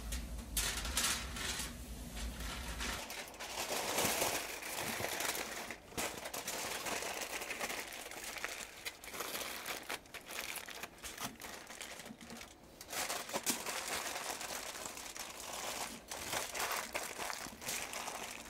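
Aluminium foil crinkling and rustling in irregular bursts as it is folded and pressed tightly around a rack of ribs.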